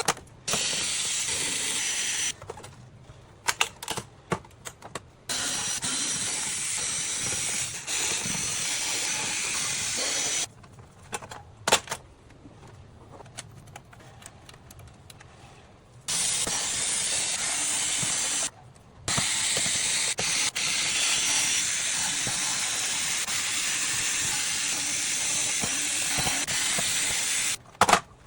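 Compressed air blasting dust out of a PS5's insides: long steady hisses that start and stop abruptly, from about two to eight seconds each, the longest near the end. Small clicks and knocks come between the blasts.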